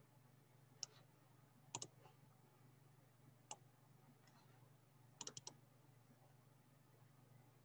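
Faint clicking at a computer: a single click, a quick pair, another single, then a run of four quick clicks, over a low steady hum.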